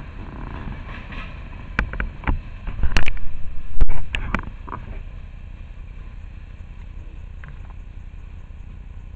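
Tail end of a freight train of tank cars rolling away, its wheels clattering over the track with a few sharp knocks in the first half, then settling to a steady low rumble as it draws off.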